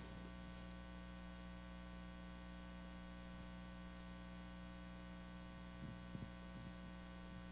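Steady electrical mains hum in the sound system, a low buzz made of many steady tones, with a few faint brief sounds about six seconds in.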